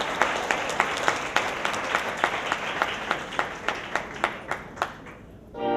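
Audience applauding, with sharp claps standing out above the general clapping at a steady beat of about three a second. The applause fades away near the end.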